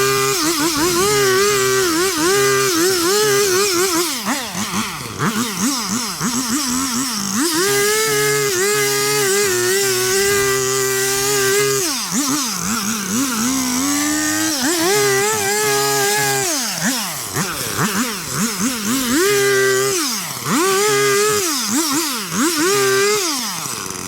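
Two-stroke string trimmer (weed whacker) engine running near full throttle in stretches of a few seconds, its pitch dropping and climbing back again and again between them while it cuts through thick overgrown weeds. It cuts off suddenly at the very end.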